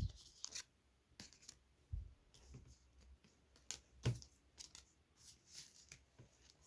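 Pokémon trading cards handled: irregular light clicks and rustles as cards are flicked and slid against each other, with a couple of soft knocks about two and four seconds in.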